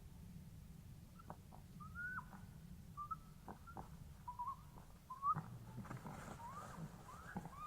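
A field recording of short whistled calls, each rising and then dropping off, about one a second and coming faster near the end. Sharp clicks or knocks fall between them, the loudest a little past five seconds in, over a steady low rumble. The recording is offered as sasquatch vocalizations; the actual maker of the whistles is unknown.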